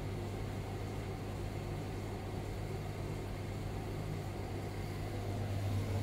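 Indesit tumble dryer running with a steady low hum and even rumble, nice and quiet with no squeal, its drum's worn teardrop bearing newly replaced.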